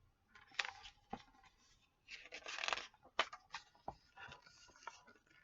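Paper pages of a picture book being handled and turned: a few soft rustles and clicks, with a longer rustle about two seconds in.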